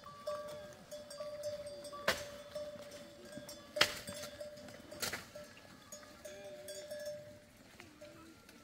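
A herd of goats on the move, bleating, with a long held tone and three sharp knocks about two, four and five seconds in.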